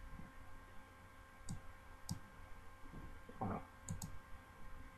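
Faint computer mouse clicks: a handful of short sharp ticks, one about a second and a half in, another at about two seconds, and a quick pair near four seconds, over a faint steady hum.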